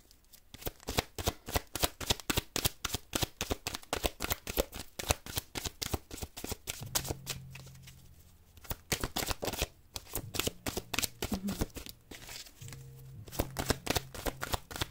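A deck of oracle cards being shuffled by hand: a rapid run of crisp card flicks and snaps, easing off briefly a few times.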